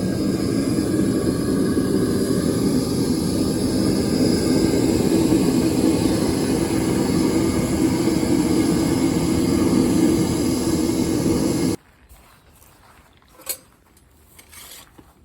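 Propane burner of a homemade blast furnace running with a steady, low roar, which cuts off suddenly near the end, leaving a faint background and one light click.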